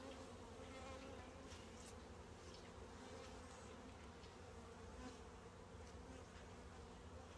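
Faint, steady buzzing of a honeybee colony around an open hive, with a few faint ticks.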